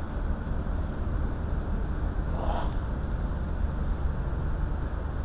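Steady low background rumble, with a faint distant shout about halfway through.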